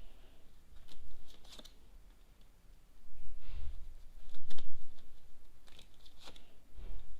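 Tarot cards being handled and laid out on a table: scattered sharp clicks and card rustles, with a couple of soft thumps about halfway through and near the end.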